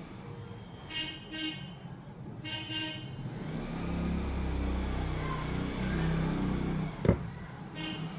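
Road traffic: a few short horn toots, then a low vehicle rumble that swells for a few seconds and ends with a sharp loud click.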